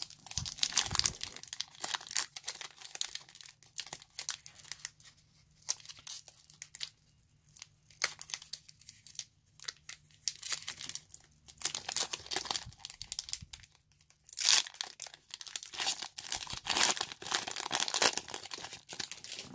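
A foil Pokémon booster pack wrapper being torn open and crinkled by hand, in many short, irregular rustles and tears, with the cards handled near the end.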